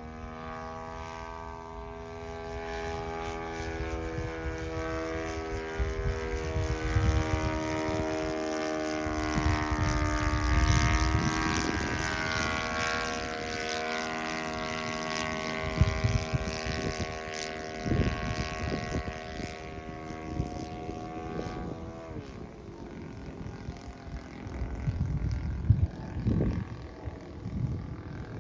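An OS FS-120 four-stroke glow engine on a quarter-scale RC Clipped Wing Cub, swinging a 14x8 propeller, drones steadily and smoothly in flight. It grows louder and drops in pitch as the plane passes overhead about eleven seconds in, then fades as it flies off. Bursts of low rumble break in at times.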